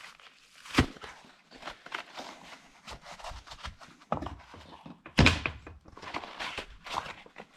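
Clunks, knocks and small clicks of a cut-open steel spin-on oil filter being handled and pulled apart, with two louder thunks, about a second in and about five seconds in.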